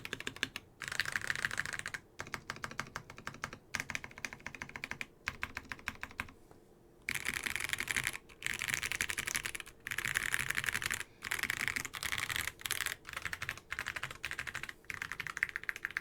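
NK87 Entry Edition mechanical keyboard with lubed KTT Onyx switches, a polycarbonate plate and PBT keycaps, with its modifier keys pressed in rapid bursts of clicks and short pauses between the bursts.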